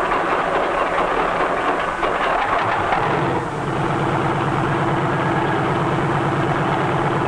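Light piston-engined helicopter running on the ground with its rotor turning, warmed up and ready for takeoff. A rushing noise gives way about three seconds in to a steady, rapid beat of engine and rotor.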